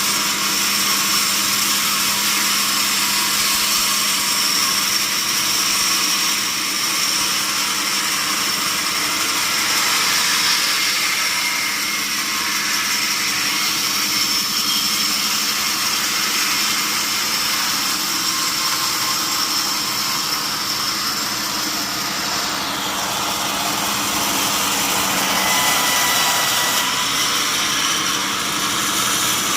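Sawmill saw running steadily as it saws a mahogany log: a loud, even high-pitched hiss over a low hum, with a faint high whine above it.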